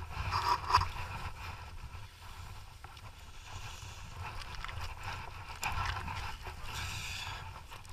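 Rumbling movement noise on a body-worn camera moving about with a dog scooter and harnessed dogs, with scuffs and rattles that get louder near the start and again about six to seven seconds in.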